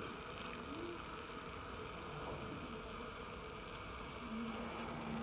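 Surgical suction aspirator running with a steady hiss as it draws off irrigation fluid from the extraction socket. A steady low hum joins about four seconds in.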